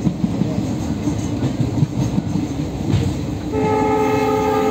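Passenger train running, with rumbling wheel-on-rail noise heard from inside a coach. About three-quarters of the way through, the train's horn starts a steady blast that is still sounding at the end.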